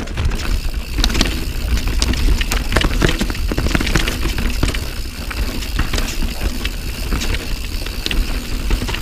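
Santa Cruz Nomad carbon mountain bike ridden fast down a rough forest trail, heard from a handlebar-mounted camera. Steady tyre rumble and wind buffeting on the microphone run throughout, with frequent sharp clicks and rattles from the chain and frame as it goes over roots and rocks.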